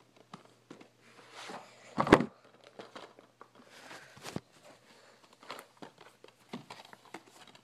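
Handling noise of the filming phone and plastic DVD cases being moved about: scattered small clicks and rustles, with one louder thump about two seconds in.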